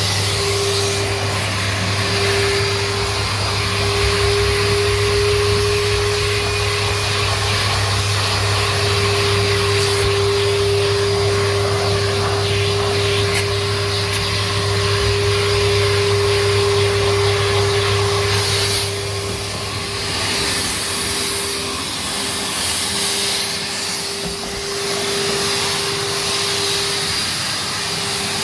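Numatic NTD570 vacuum cleaner running steadily, its motor giving a constant whine over the rush of air through the hose. About two-thirds of the way in the low hum drops away and the airflow hiss comes and goes in surges as the nozzle works along the stairs.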